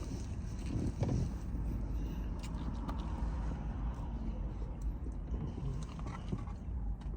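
A person chewing and biting food, with small clicks and scrapes, over a low steady rumble.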